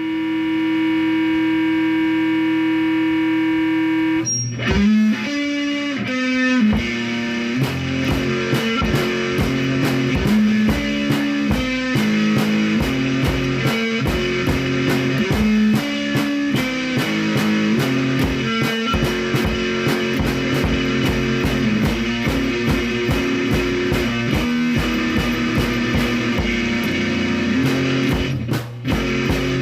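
Guitar music: a held chord for about four seconds, then a rhythmic rock riff with a steady beat.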